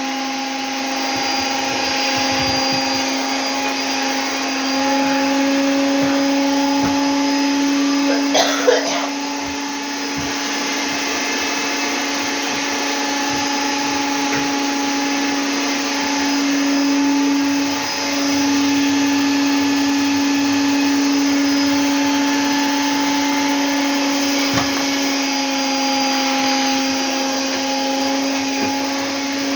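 Vacuum cleaner running steadily, a continuous motor hum with a steady pitched whine over rushing air. There is a brief louder noise about eight seconds in.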